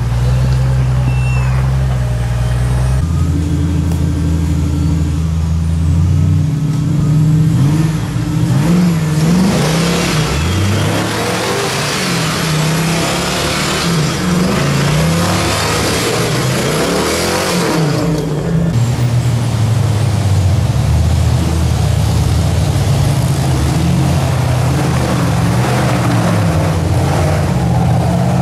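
Off-road rock crawler engines idling and revving in short bursts as they crawl over rough ground, the engine pitch rising and falling again and again. A rushing noise joins partway through and cuts off abruptly.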